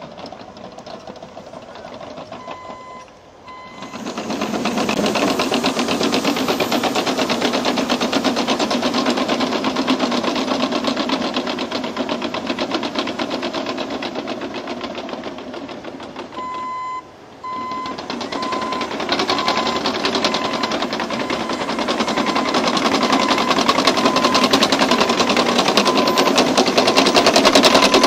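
Caterpillar D6N LGP crawler dozer at work: its diesel engine running under load with a fast, even clatter from the steel tracks, quieter for the first few seconds and then loud. A reversing alarm beeps briefly twice, about three seconds in and again past halfway, as the machine shifts direction.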